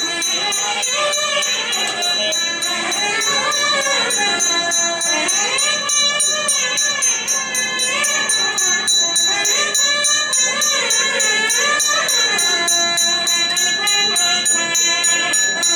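Traditional Indian devotional music: an ornamented melody that slides up and down over a steady drone, with a regular percussion pulse.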